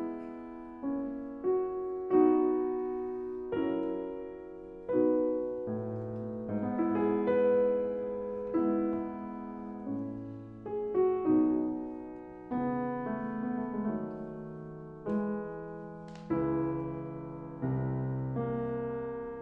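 Background piano music: slow notes and chords struck about once a second, each left to ring and die away.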